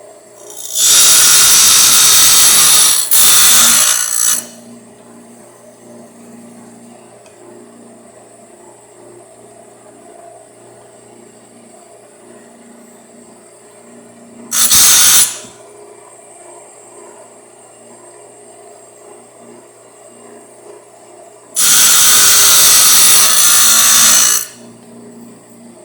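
Delta Milwaukee surface grinder running with a steady motor hum while its grinding wheel cuts a scrap workpiece three times. Each contact is a loud grind: about three seconds near the start, under a second about halfway, and about three seconds near the end. It is taking a deep cut off the part.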